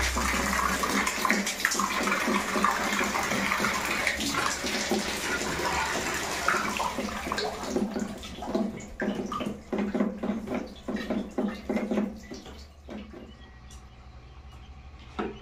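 Water pouring out of the open element port at the bottom of an electric geyser tank as it drains, splashing below. About eight seconds in, the flow thins to irregular drips and splashes, and it dies down near the end.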